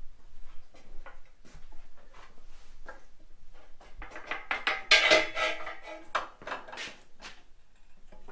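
Heavy steel parts being handled: a run of metal clanks, knocks and scrapes, with the loudest ringing clank about five seconds in.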